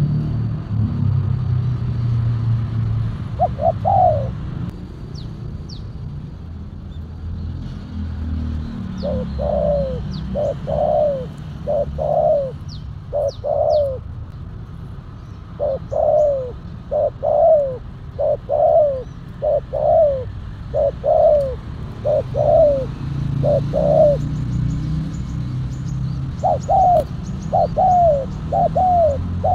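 Spotted doves cooing: short coos repeated about twice a second in runs of several, with faint high chirps of small birds and a low rumble underneath.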